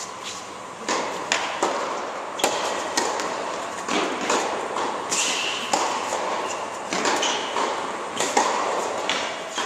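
Tennis rally on an indoor hard court: racket strings striking the ball and the ball bouncing on the court, a string of sharp hits about every half second to second, each echoing in the large hall.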